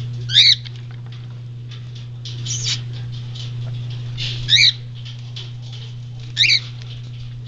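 Four short, high, warbling chirps from a small pet animal, about two seconds apart, over a steady low hum.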